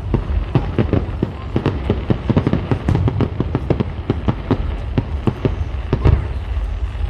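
Fireworks display going off: a dense, irregular run of sharp bangs and crackles, several a second, over a continuous low rumble, with a heavier bang about six seconds in.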